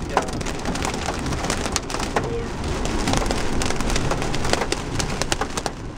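Heavy rain hitting a car's windshield and roof, heard inside the cabin: a dense, steady patter of many separate drop hits.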